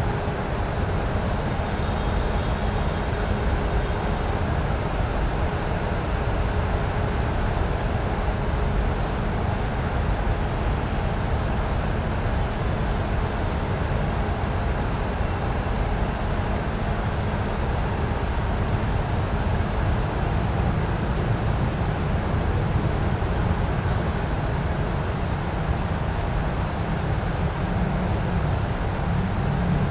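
A steady low rumble of background noise, unchanging throughout, with no speech or music.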